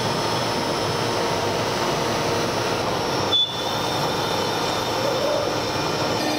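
CNC router spindle running steadily while it drills locating pinholes into an MDF board. There is a brief break a little past halfway.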